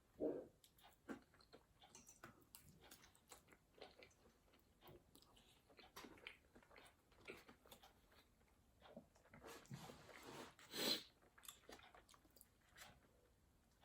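A person chewing food close to the microphone: faint, irregular wet mouth smacks and small crunches, with two louder bites, one at the start and one near the end.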